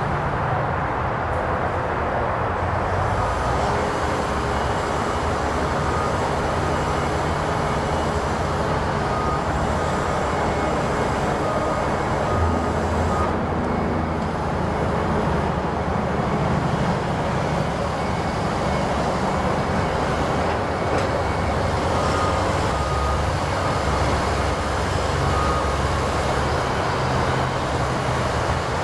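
Volvo ECR145EL excavator's diesel engine running steadily while the machine works, its low note swelling and easing with the hydraulic load. A faint repeated beep sounds in two short spells.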